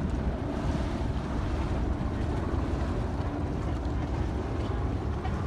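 Steady wind noise on the microphone over the rush of water from a boat under way.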